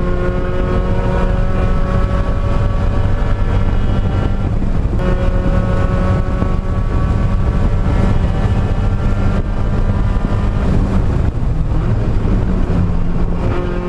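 Mazda Miata track car's engine heard from inside the cabin, running at full throttle in fourth gear at around 5,000 to 5,600 rpm, its pitch climbing slowly. The sound breaks and starts again about five seconds in, and the engine note drops near the end as the throttle is lifted.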